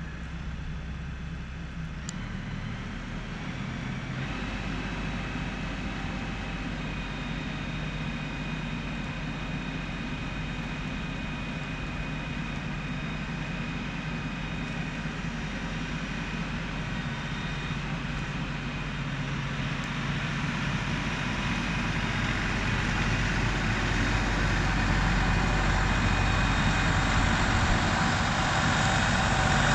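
LS compact tractor's diesel engine running while it back-blades snow, growing steadily louder from about twenty seconds in as the tractor comes closer.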